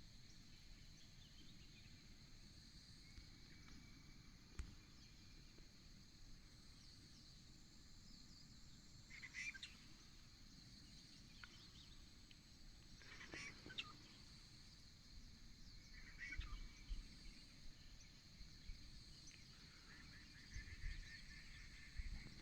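Faint outdoor ambience: a steady high-pitched drone with a few short bird calls spaced several seconds apart.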